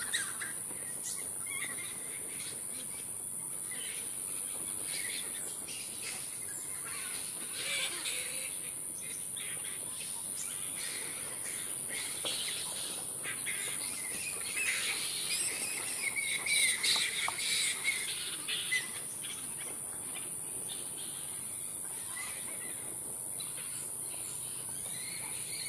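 Flying fox colony calling: scattered squawks and chatter from the bats in the pine trees, busiest and loudest between about 15 and 19 seconds in. A steady high-pitched insect drone runs underneath.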